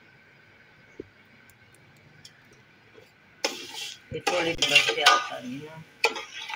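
A metal slotted spoon stirs and scrapes against the inside of a metal cooking pot holding sugar syrup and milk. The scraping clatter is loud and begins about three and a half seconds in. Before it there is only a faint steady background and one light click.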